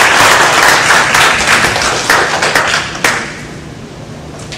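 Audience applause, many hands clapping, dying away about three seconds in, with one sharp tap as it ends.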